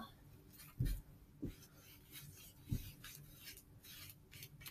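Paintbrush brushing across watercolor paper in short, faint, scratchy strokes, with three dull thumps in the first three seconds.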